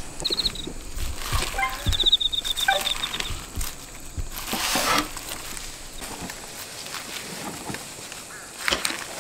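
A high, rapid trill of quick even pulses, heard twice in the first few seconds, over quiet outdoor ambience with scattered light knocks and a brief rustle about five seconds in.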